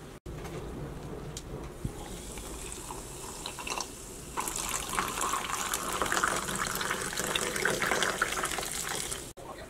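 Sparkling water poured from a plastic bottle into a glass of fruit and mint, splashing and fizzing. The pour gets louder about four seconds in and cuts off suddenly near the end.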